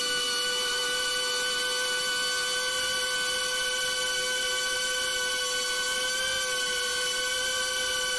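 Steady high whine of a BetaFPV Beta95X V3 cinewhoop's brushless motors and ducted propellers, heard through its onboard camera, holding nearly even pitch at steady throttle with a slight waver about six seconds in.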